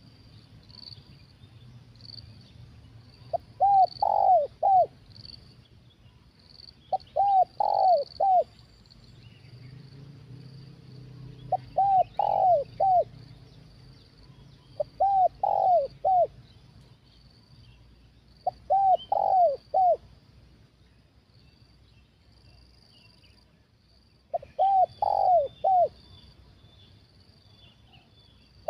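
Spotted dove cooing: a short phrase of three or four notes, repeated six times about every four seconds. A steady high chirping of insects runs behind it.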